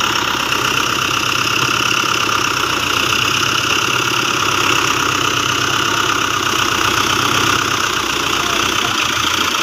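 Engine-driven silage machinery running steadily at constant speed, a low engine beat under a loud, even mechanical hiss.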